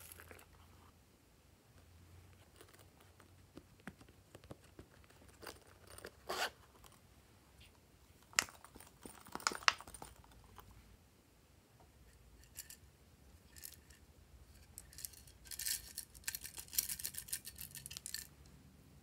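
Faint handling noises of slime decorations: scattered clicks and taps from a plastic glitter shaker bottle and pinches of sequins falling onto the slime. Twice there is a brief patch of quick rattling clicks as glitter is shaken out, about halfway through and again near the end.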